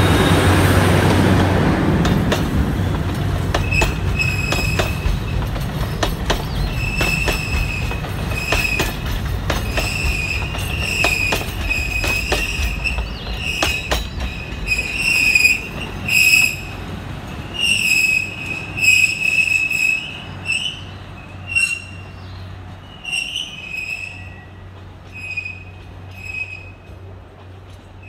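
Alishan Forest Railway train behind a DL-43 diesel locomotive passing and moving away: the locomotive's rumble is loudest at first, then the carriages' wheels clack over the rail joints and squeal again and again in a high pitch, fading as the train goes around the curve.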